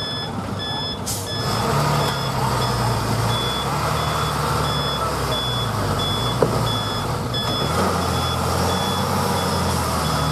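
A truck's reversing alarm beeping in a steady rhythm over its diesel engine working as the truck backs up loaded with a tracked excavator. The engine pulls harder about a second and a half in.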